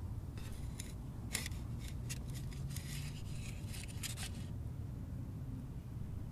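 Wooden spatula scraping under an acorn pancake on a hot griddle over a wood fire: a quick run of short scrapes that stops about four and a half seconds in.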